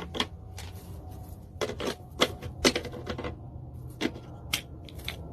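Irregular sharp clicks and taps, a few to several a second in uneven clusters, over a low steady hum.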